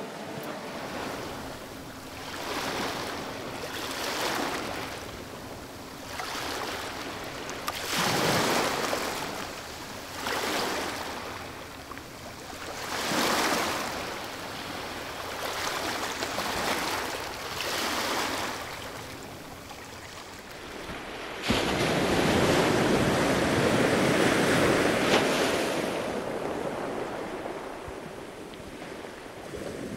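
Surf washing onto a shore, swelling and ebbing every two to three seconds. About two-thirds through, a louder, longer rush of surf starts suddenly and lasts several seconds before fading.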